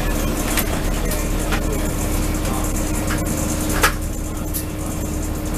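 Lobster boat's engine running steadily with a steady hum, and a few sharp knocks over it, the loudest about four seconds in.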